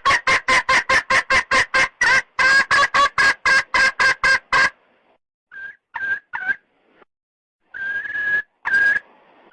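Red junglefowl hen calling to a rooster: a fast, even run of clucks, about five a second, that stops about halfway through, followed by a few separate calls, the last two drawn out on one steady pitch.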